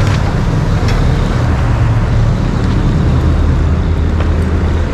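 Steady low rumble of motor vehicle noise, with a few faint clicks.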